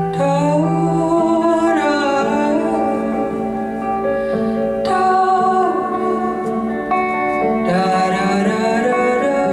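Live solo music on electric guitar: long sustained, overlapping notes ringing together, with new notes sliding in about a second in, near five seconds and again near eight seconds.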